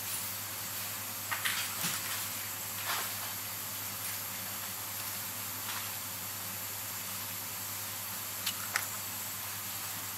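Small clicks and taps of a watchmaker's steel screwdriver and tweezers against a Seiko 7S26B watch movement and its holder during assembly: a few light clicks about one to three seconds in and two more close together near the end. Under them, a steady hiss with a low hum.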